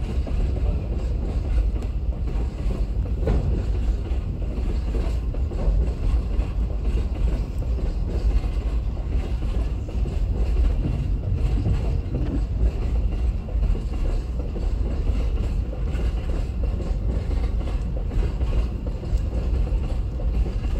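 Freight train wagons rolling past on the track: a steady low rumble with light wheel clatter.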